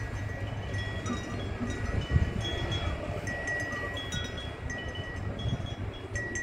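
Metal wind chimes ringing in the breeze: several clear notes struck at irregular moments, each ringing on briefly, over a low rumble of wind on the microphone. A dull thump about two seconds in.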